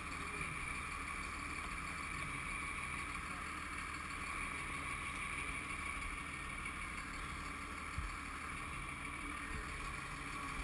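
Fire truck engine running, a steady low drone with a steady hiss over it.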